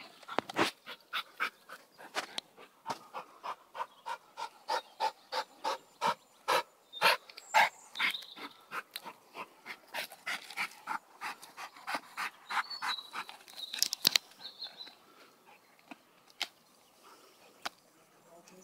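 A dog chewing and gnawing a rotting log, its teeth crunching and cracking the crumbly wood in a quick run of sharp crunches, about two a second. The crunches thin out to a few scattered ones after about fourteen seconds.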